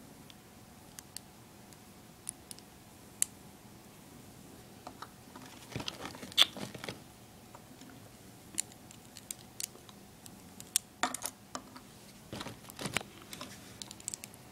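Small plastic LEGO pieces being handled and snapped together by hand: scattered sharp clicks, coming thicker about six seconds in and again from about eleven to thirteen seconds in.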